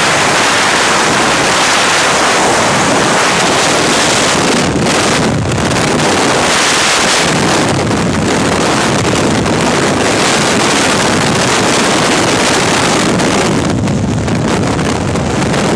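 Freefall wind rushing hard over a camera microphone during a skydive, a loud, steady buffeting hiss that dips briefly a few times.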